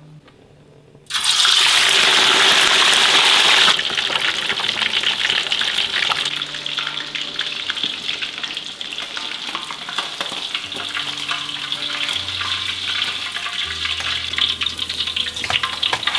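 Whole fish going into hot oil in a wok: a sudden loud burst of sizzling about a second in, easing after a few seconds into steady crackling deep-frying.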